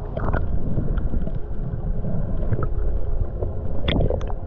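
Underwater water noise while a spearfisher swims: a steady, muffled low rumble with a few sharp clicks and crackles, the loudest about four seconds in.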